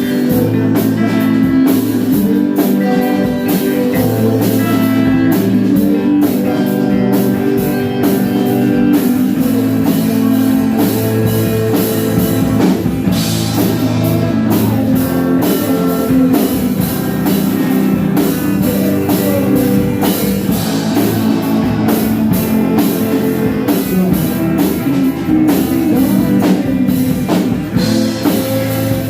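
Live band playing rock music with guitar and drum kit, cymbals keeping a steady beat.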